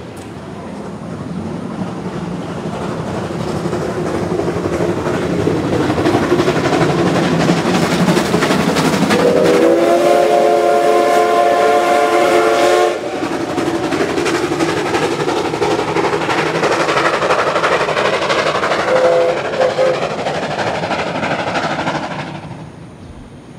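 A C56 steam locomotive hauling a passenger train, with the steady noise of the running train building over the first few seconds. About nine seconds in comes a long blast of its steam whistle lasting several seconds that cuts off sharply, then a short faint toot near twenty seconds. The train noise falls away near the end.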